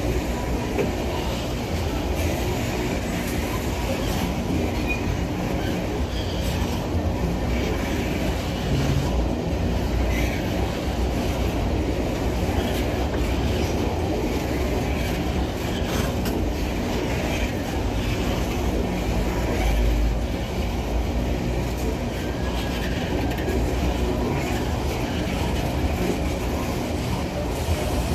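An empty freight train's open-top gondola wagons rolling past close by: a steady rumble of steel wheels on the rails, with scattered clicks as the wheels cross the rail joints.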